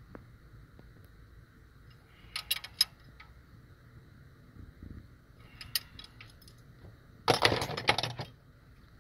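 Steel hand tools clinking against the rocker arms and locking nuts of a Detroit DD15 diesel during a valve lash adjustment. A few light metallic clicks come first, then a louder rattling clatter of about a second near the end.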